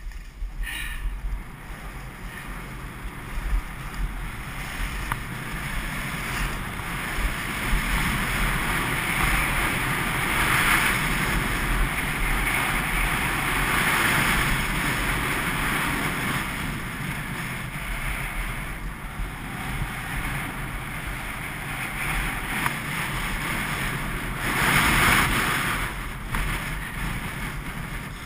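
Skis hissing and scraping over packed snow, with wind rushing over the microphone. The sound swells louder around the middle and again briefly near the end.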